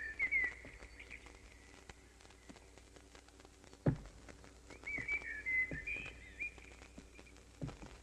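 Bird-like warbling whistles in two quick chirping phrases, one right at the start and one just past the middle. A dull thump sounds about four seconds in, with a softer one near the end.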